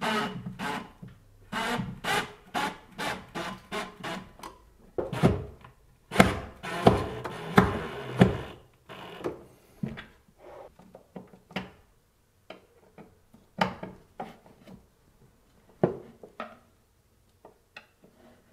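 Fastening a receptacle into a wall box with a cordless 12-volt impact driver run in short, slow bursts on the mounting screws, then quieter clicks and scrapes as the cover plate is fitted and tightened with a hand screwdriver.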